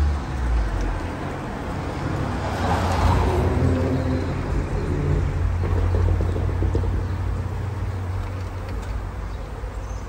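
A car passing along the street, loudest about three seconds in, over a steady low rumble of traffic. A honey bee swarm hums faintly underneath.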